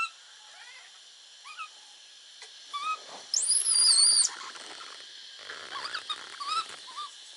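Baby monkeys giving high-pitched calls: several short rising squeaks, and about three seconds in one long shrill squeal lasting about a second, the loudest sound.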